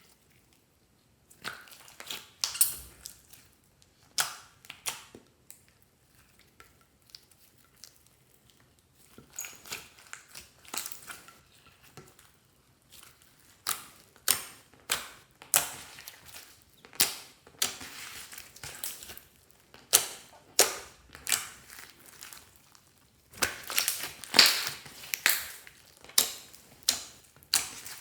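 Hands squeezing and kneading clear slime with things mixed into it, making irregular sticky pops and clicks that come closer together near the end.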